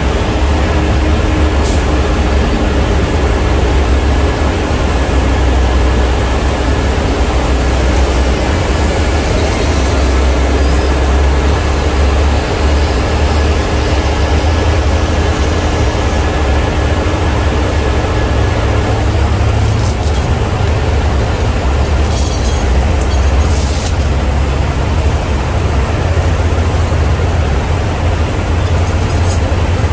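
Heavy truck engine running steadily with a low drone, and a faint steady whine that stops about two-thirds of the way through.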